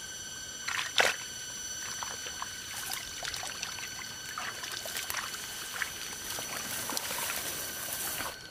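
Water splashing and trickling, with one sharp splash about a second in, over a steady high-pitched whine.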